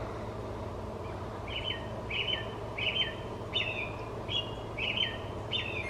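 A bird calling, one short note repeated evenly about one and a half times a second, seven times, starting about a second and a half in.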